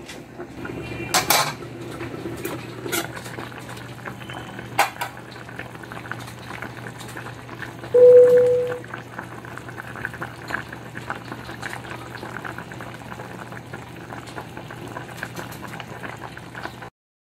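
Tomato-sauce chicken stew simmering in a stainless steel saucepan, bubbling steadily, with a few sharp clicks in the first five seconds. A loud short beep sounds about eight seconds in, and everything cuts off abruptly near the end.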